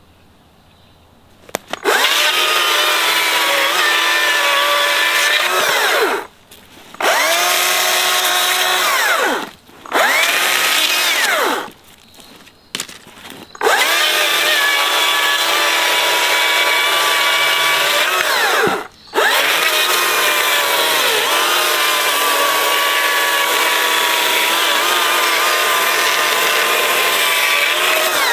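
Stihl MSA 200 C battery chainsaw cutting through a log: a steady electric whine with the chain rattling through the wood, in five runs with short pauses between them, the pitch sagging and recovering as the saw starts and stops.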